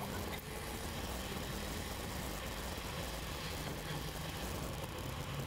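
Engine drone and tyre noise of a Mahindra XUV SUV driving on a paved road, heard inside the cabin: a steady low hum with even road hiss.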